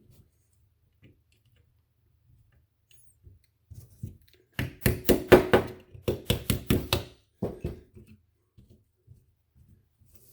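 A quick run of sharp clicks and knocks, about ten in two seconds, with a faint ring under them, then a few more knocks. These are handling and tapping sounds from taking apart a Polymer 80 Glock-pattern pistol frame, working its pins and parts loose.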